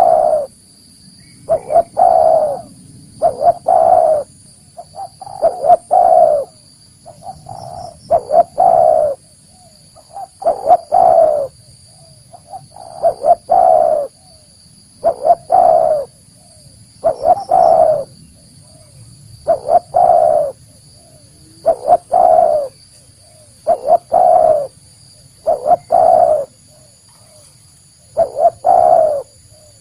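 Spotted dove (tekukur) cooing over and over, a phrase of a few notes roughly every two seconds; this is the call that brings other spotted doves in to a lure or trap.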